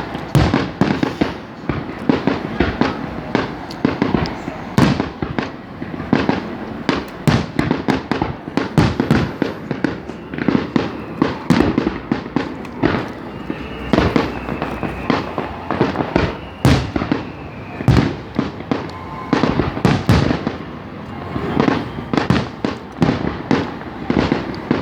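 Aerial fireworks going off in quick succession, one sharp bang and crackle after another. A faint whistling tone runs for a few seconds around the middle.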